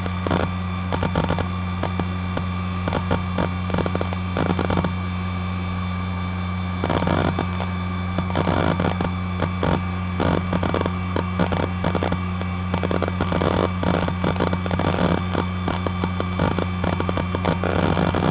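ExcelStor Technology CT210 10.2GB hard drive spinning with a steady hum while its heads seek in irregular clicks and chatter as Windows XP saves settings and shuts down. The seeking eases off for a couple of seconds about five seconds in, then picks up again.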